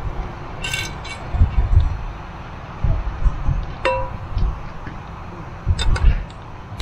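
Cookware clinking during camp cooking: a few sharp clinks, one about four seconds in with a short ring, over irregular low knocks.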